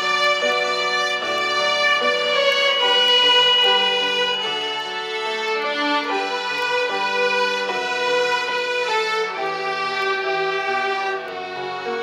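An ensemble of child violinists playing a slow hymn together, the notes long and sustained.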